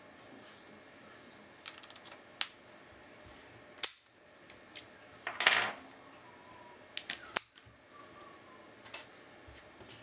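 A cruciform-key padlock being handled in the hands: a string of sharp metallic clicks, with a short scraping metal rattle about halfway through.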